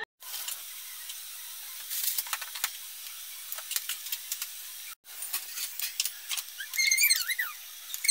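Steady hiss with light clicks and clinks of metal tongs against the tin as a roast chicken is lifted off its upright stand. Near the end come a few high squeaky chirps that rise and fall.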